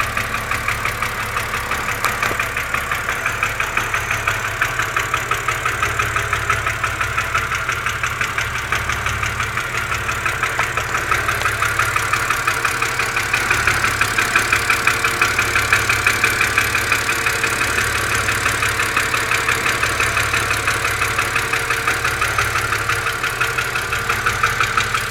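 BMW Z4 2.5si's straight-six engine idling cold with a fast, even ticking over the running engine: the cold-engine tick the owner is recording.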